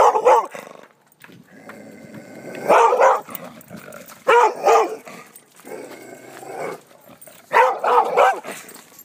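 A large dog barking in four clusters of two or three quick barks each: at the start, about three seconds in, about four and a half seconds in, and near the end.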